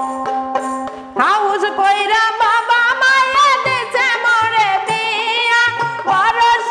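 Bengali folk song: a short instrumental passage of plucked strings and hand drum, then a woman's voice starts singing about a second in, with a wavering, ornamented melody over the accompaniment.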